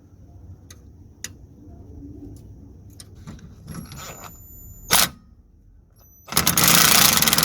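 Metal tool clicks and clanks on the car's underbody, then a power tool running in a burst of rapid clicking for about two seconds near the end, driving in the bolt of a handbrake cable clamp.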